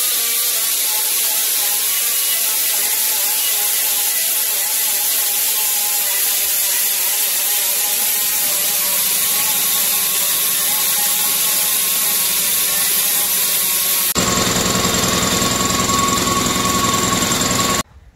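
A handheld power tool running steadily against the inside of a BMW E30's aluminium oil pan, cleaning it up. About 14 seconds in, its tone changes to a fuller, buzzier sound, and it cuts off suddenly near the end.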